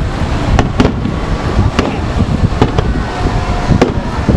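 Aerial firework shells bursting in a rapid series, about five sharp bangs over a continuous low rumble from the ongoing barrage.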